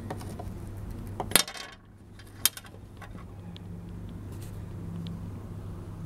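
A small metal pond-yacht anchor clinking twice as it is handled and set down, about a second and a half in and again a second later; the first clink rings briefly. A steady low hum sits underneath.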